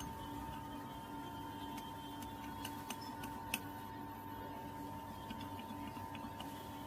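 Metal lathe running with a steady whine, with a few scattered light ticks.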